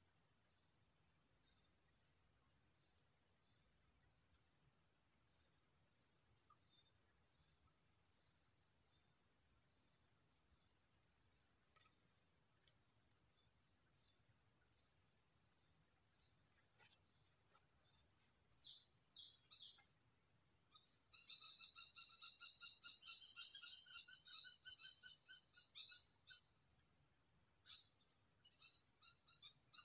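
Steady high-pitched drone of insects in riverside forest. Past the middle a bird gives a pulsing, warbling call for several seconds, with a few short chirps before and after.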